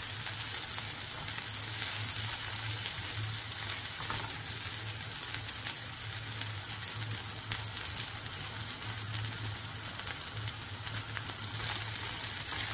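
Chopped onion and cumin seeds sizzling and crackling in hot oil in a nonstick pan, being sautéed, with a spatula stirring them now and then. A low steady hum runs underneath.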